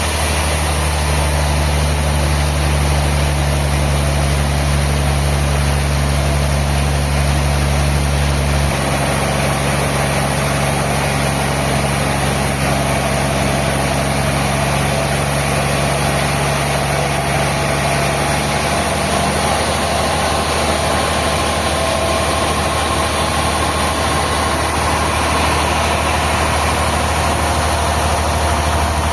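Sawmill machinery running steadily with a low engine-like hum. The deepest part of the hum drops about nine seconds in, and another steady tone fades out a little past halfway.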